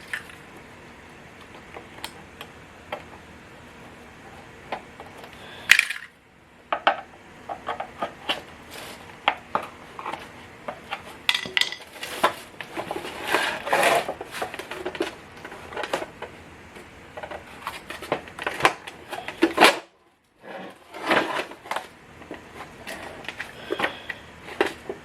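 Scattered metal clinks, taps and rattles from hand tools and parts as the original heater core is worked out of a 1966 Mustang heater box, broken twice by a sudden short silence.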